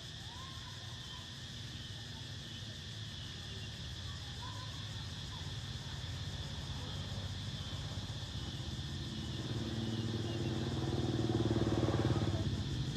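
A motor vehicle's engine approaching, growing louder over the last few seconds and loudest near the end, over a steady high insect drone.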